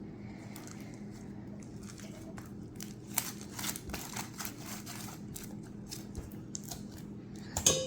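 Sticky butter slime being worked in a mixing bowl, giving irregular small clicks and squishes from about three seconds in, with a sharper knock just before the end.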